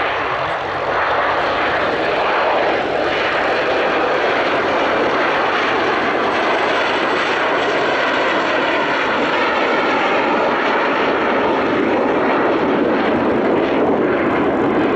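Dassault/Dornier Alpha Jets flying past in close formation: their twin Larzac turbofans give a loud, steady rushing jet noise. It builds over the first second or so and deepens toward the end as the jets go by.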